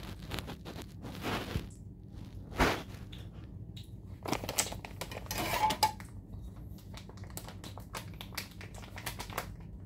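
Irregular light clicks and knocks of objects being handled, with one sharper knock a little over two and a half seconds in and a cluster of clicks around the middle, over a faint steady hum.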